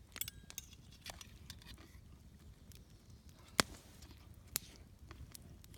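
Light, scattered clicks and taps of an eating utensil against camp cookware, with a few ringing metallic ticks near the start and two sharper clicks about three and a half and four and a half seconds in.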